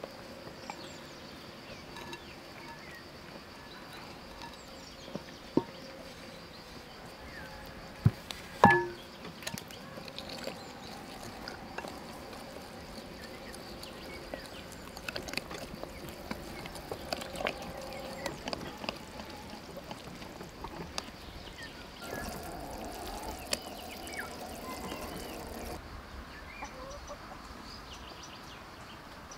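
Wooden spoon stirring batter in a glass bowl, with a couple of sharp knocks that ring briefly about eight seconds in. Birds chirp faintly in the background.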